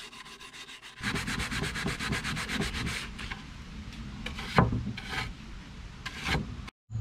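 150-grit sandpaper rubbed by hand in quick back-and-forth strokes over the bare wood of a stripped nightstand, a fast scratchy rhythm that gets louder about a second in. In the second half the strokes thin out into a few separate swishes as a bristle brush sweeps off the sanding dust.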